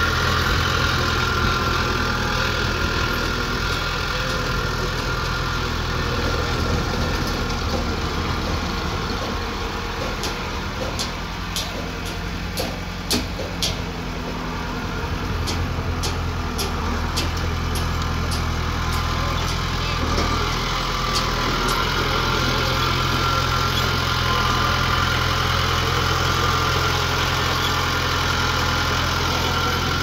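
Small Komatsu D21A crawler bulldozer's diesel engine running steadily as it pushes soil, its hum shifting pitch a few times. A run of sharp clicks comes about a third of the way through.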